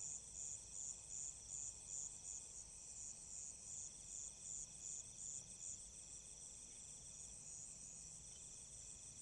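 Crickets and other night insects chirping: a steady, high, rapidly pulsing trill with a fainter, lower insect trill beneath it.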